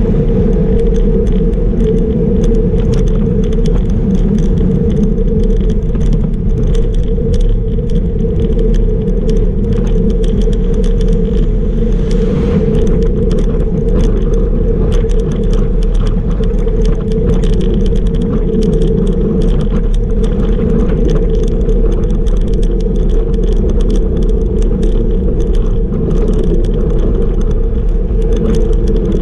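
Steady wind and road rumble on a bike-mounted camera's microphone as a bicycle rides over asphalt at about 37 km/h, with a constant fast clatter of small rattles and ticks from the mount over the rough surface.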